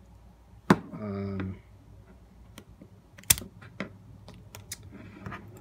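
Light clicks and ticks of small tools and fingers handling the parts of an opened iPhone 6s, with two sharper clicks, one under a second in and one near the middle.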